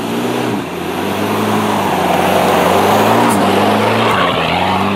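Off-road Suzuki Vitara's engine revving under load on a steep climb, the revs dipping and picking up again a few times. It grows loudest as the vehicle passes close by about three seconds in, with tyres churning through leaves and mud.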